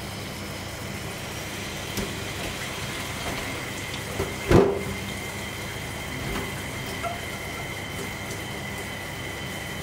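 Water running steadily into a stainless steel sink, with one sharp, loud knock about halfway through as boiled beef tendon is tipped from a pot into a mesh strainer. A few faint clicks sit among the running water.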